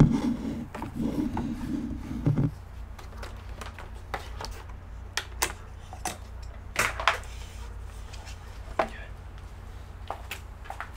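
Handling noise from an opened iMac on a workbench: a cluster of low bumps and knocks in the first couple of seconds, then scattered single clicks and taps as parts are touched and moved, over a steady low hum.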